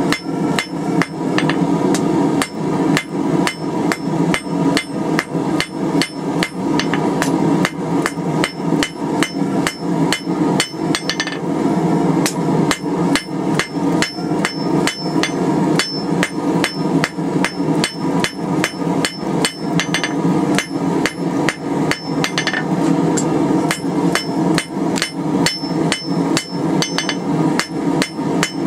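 Hand hammer striking a hot quarter-inch steel bar on the flat face of an anvil in a steady, unbroken rhythm of blows, drawing out a taper. A steady hum runs underneath.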